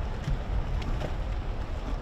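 Wind buffeting the microphone, an uneven low rumble, with a few faint short ticks and chirps above it.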